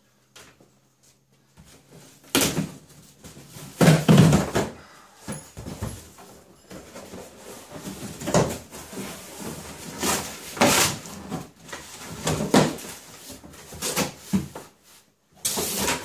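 A large cardboard shipping box being handled and opened by hand: cardboard scraping and rustling as the flaps are pulled back, with a string of irregular knocks and thuds, the loudest about four seconds in.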